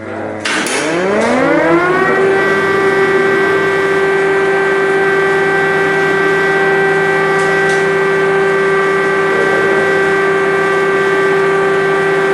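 Air-raid siren winding up from a low pitch over about a second and a half, then holding one steady tone.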